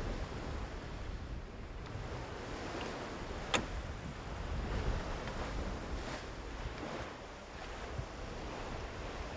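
Wind buffeting the microphone over the steady wash of open sea water aboard a sailing schooner, with one sharp click about a third of the way through.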